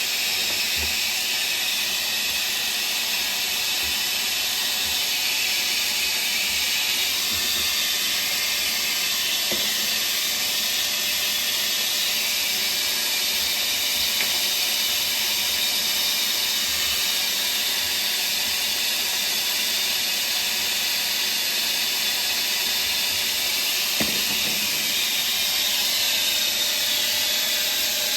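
Handheld hair blow dryer running steadily, a constant even hiss, used to melt ice built up around a refrigerator's evaporator coil.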